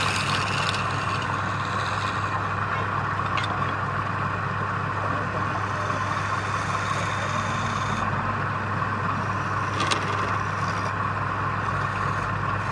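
Wood lathe running steadily, with a tool scraping against the spinning wood and two brief clicks.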